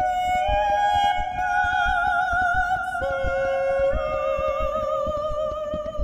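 Ambient music: slow, held high notes with a wavering vibrato, layered over one another and stepping to new pitches every second or so, above a faint low pulsing.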